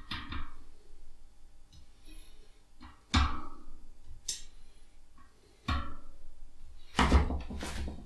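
Spoked bicycle wheel being handled during truing: several sharp metallic knocks, each with a brief ring from the rim and spokes, as the rim is gripped and turned by hand.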